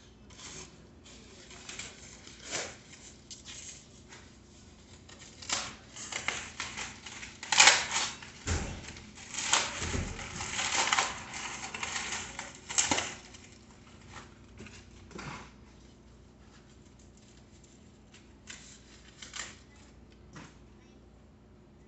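Brown packing paper and plastic wrap rustling and crinkling as it is pulled off and crumpled, with scattered clicks and light knocks. The crinkling is densest and loudest through the middle, then falls back to a few sparse rustles.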